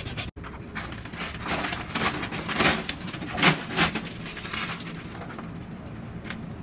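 Hacksaw blade sawing through a PPR plastic pipe, cut off after a moment, then a few irregular knocks and scrapes of handling work, the loudest about three and a half seconds in.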